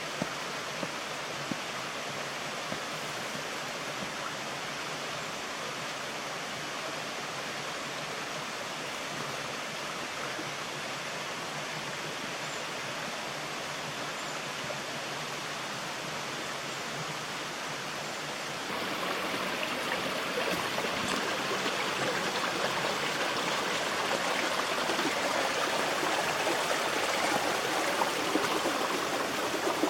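Steady rush of flowing water from a rainforest creek. About two-thirds of the way through it abruptly becomes louder and fuller.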